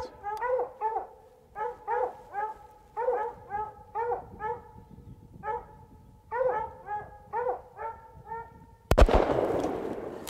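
Hounds barking over and over, a few barks a second, at a mountain lion treed above them. About nine seconds in, a single loud shot from a Thompson Center Pro Hunter single-shot pistol cuts through, ringing out in an echo that fades over about a second.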